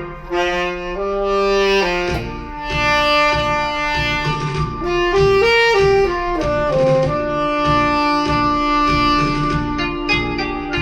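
Instrumental music played back on a repaired portable speaker under test: a held, wind-instrument-like melody line stepping between long notes over a steady beat.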